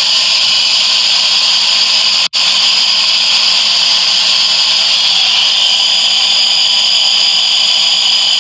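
Electric grinder running steadily at full speed, grinding a mix of grains and seeds. It cuts out for an instant a little over two seconds in.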